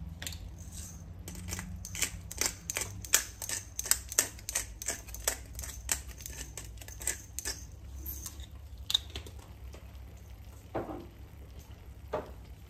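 Hand-twisted black pepper grinder cranked over a frying pan: a rapid, irregular run of dry grinding clicks for about eight seconds, then it stops, with two soft knocks near the end.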